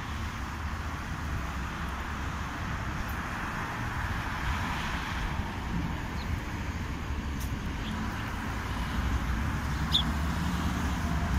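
Steady street traffic noise from passing cars, with a low rumble that grows slightly louder toward the end. A short high chirp about ten seconds in.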